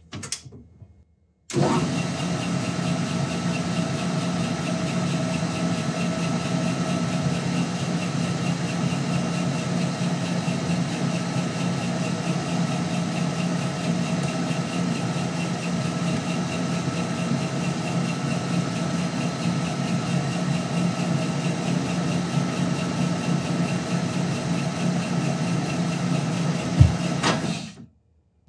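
Metal lathe running at a steady speed, its motor and gear drive giving a constant multi-tone drone, while a knurling tool rolls a pattern into a new knob. The sound starts abruptly about a second and a half in and stops sharply just before the end, with a click and a brief low thump moments before it stops.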